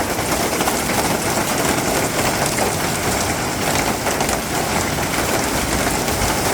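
Hail and rain pelting down in a gale-force storm: a loud, steady, dense clatter of countless small impacts over a constant rushing noise.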